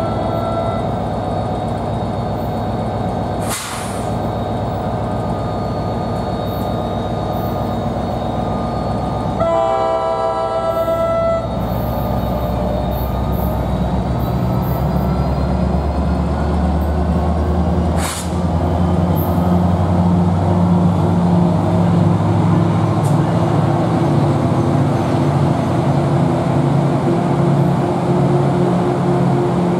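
NJ Transit diesel locomotive-hauled commuter train approaching: the horn sounds at the start and again for about two seconds around ten seconds in. After that the locomotive's engine drone takes over, low and steady, getting louder from about twenty seconds in.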